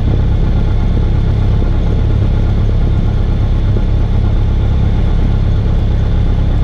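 Cessna 172R's four-cylinder Lycoming engine and propeller idling while the plane taxis: a steady, even low drone.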